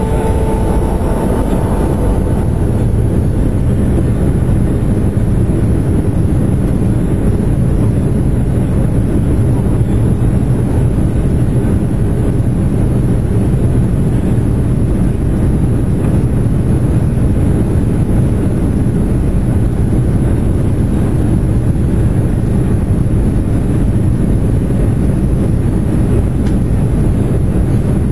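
Boeing 737-700 cabin noise heard from over the wing: the CFM56 turbofans running and the airliner rolling on the ground, a steady deep rumble.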